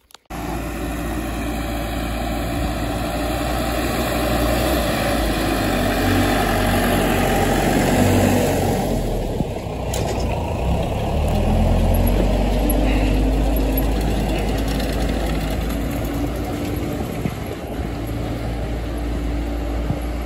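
Tractor diesel engine running under load as it tows a broken-down tractor on a rope, growing louder as it passes and easing off near the end.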